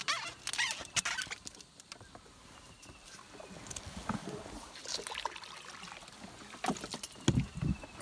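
Light knocks and rustling from a small wooden boat and the water hyacinth leaves beside it as a man shifts about and reaches into the plants. A few low thumps come near the end.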